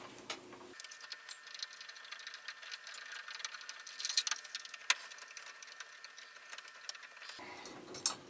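Phillips screwdriver turning screws out of a shower valve's chrome escutcheon plate: faint, rapid ticking and scraping of metal on metal, with one sharper click about five seconds in.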